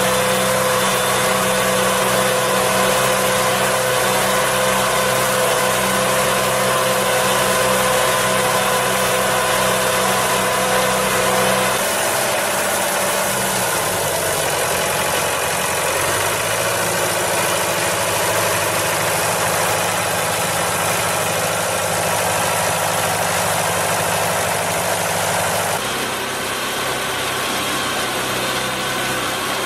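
Engines of heavy farm machinery running steadily, the engine note changing abruptly about twelve seconds in and again near the end.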